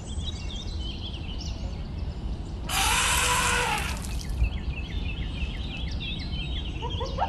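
Birds chirping over a steady low outdoor rumble. About three seconds in, a loud rushing blast from an elephant's trunk lasts about a second.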